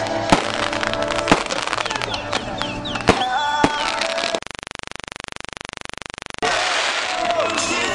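Fireworks going off over the voices of a crowd: a rocket launching and a few sharp bangs in the first half. About halfway through, the sound is replaced for two seconds by a steady, evenly pulsing buzz, then the crowd and fireworks return.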